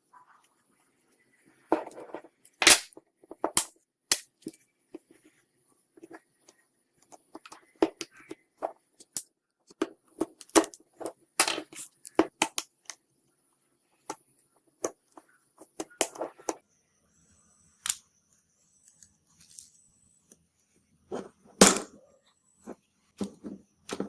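Irregular sharp clicks, taps and small snaps of hand tools and phone parts being handled during a smartphone repair, some single and some in quick runs, with quiet gaps between them.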